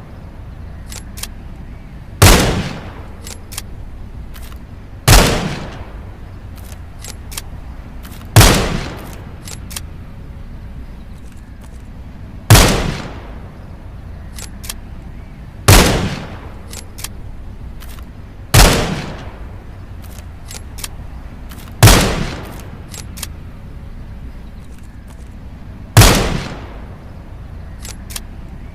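.22 rifle firing single shots, eight in all, roughly every three to four seconds, each ending in a short echoing tail. Faint light clicks fall between the shots.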